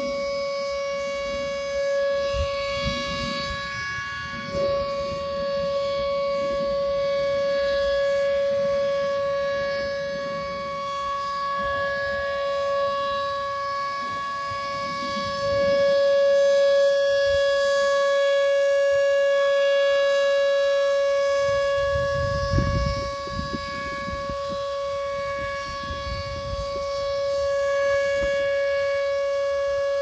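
A Whelen Vortex R4 outdoor warning siren sounds a steady, unwavering full-alert tone, the tornado warning signal. It grows louder through the middle and eases off again as the rotating head turns toward and away. A brief low rumble hits the microphone a little after twenty seconds in.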